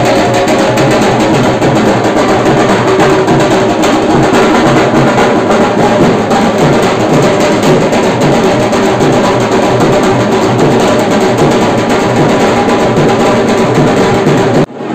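Loud drum-heavy music that runs steadily and then drops away sharply just before the end.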